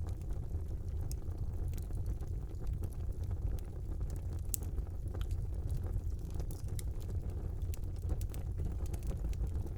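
Wood fire burning in a fireplace: a steady low rumble of flames with scattered crackles and pops, one sharper pop about four and a half seconds in.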